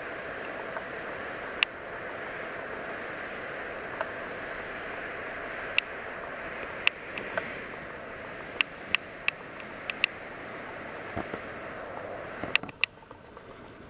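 Motorized Trackmaster toy train's battery motor running with a steady whir, with sharp clicks scattered through it. The whir drops away near the end.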